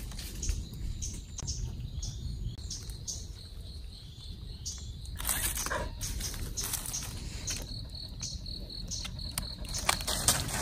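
Insects chirping in a steady high-pitched pulsed rhythm, the pulses quickening to several a second in the second half, over a low rumble. A brief louder noise comes about five seconds in.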